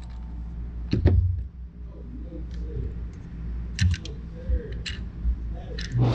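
A few sharp knocks and clicks, the loudest about a second in with a low thud, and a quick cluster of clicks near the four-second mark, over faint voices.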